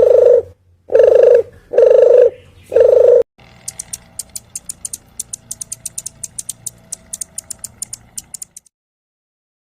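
An animal's loud pitched hooting calls, one roughly every second, four times. They are followed by a long run of rapid, sharp clicks, several a second, which stop abruptly near the end.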